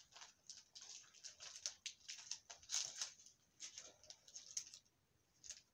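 A makeup brush roll and its wrapping being handled and unrolled: faint, irregular rustling and crinkling, stopping shortly before the end.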